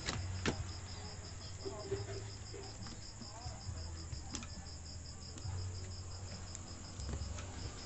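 Insect chirping in a steady, fast, even pulse of a high tone, about six chirps a second, over a low hum, with a few sharp clicks as the television's circuit board and wires are handled.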